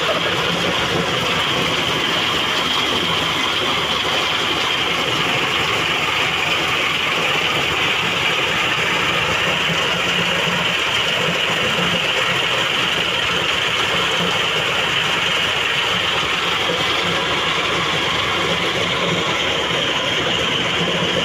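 Engine-driven corn sheller running steadily: a dense, continuous mechanical clatter over a low engine hum.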